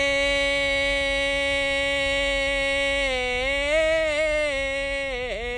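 A solo voice singing a Punjabi kalam, holding one long note: steady for about three seconds, then dipping and rising in pitch, with a brief waver near the end.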